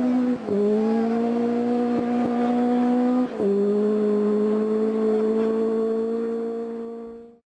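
Group B rally car engine at high revs, upshifting twice, about half a second in and again about three seconds in, with the revs climbing slowly after each shift. It dies away near the end.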